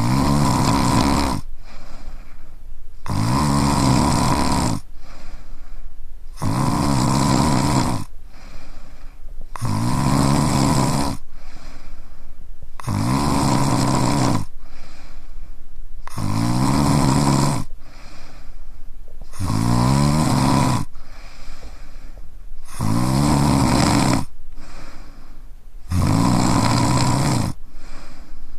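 A man snoring in his sleep: a long pitched snore about every three seconds, nine in a row, with quieter breathing between them.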